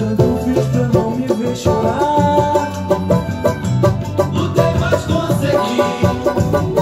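Brazilian samba banjo strummed in a quick, busy samba rhythm, with a bass line accompanying it underneath.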